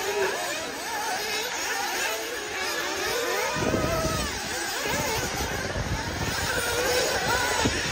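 Several nitro RC buggy engines racing, their high-pitched whine rising and falling as they rev through corners and straights. A low rumble joins about three and a half seconds in.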